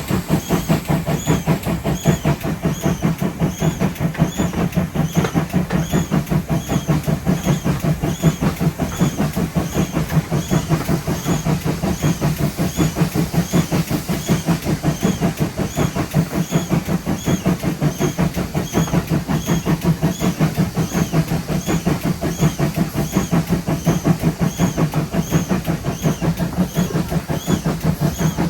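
Steam pannier tank locomotive 7754 running along the line, a steady rhythmic running noise with a regular beat about one and a half times a second that keeps an even pace throughout.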